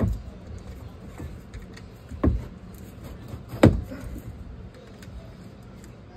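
Three sharp knocks: the first right away, the second a little over two seconds in, and the loudest about three and a half seconds in.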